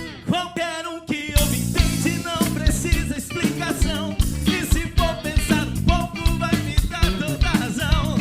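Pop-rock band playing an instrumental passage: drum kit keeping a steady beat under bass and electric guitar, with a wavering melody line on top. The music thins briefly at the start and the full band comes back in about a second and a half in.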